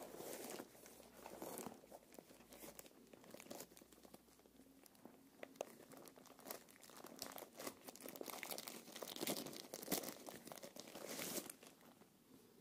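Thin plastic wrapping crinkling and rustling in the hands as a drone remote controller is pulled out of a padded bag and unwrapped, in irregular crackles that are busiest near the end before easing off.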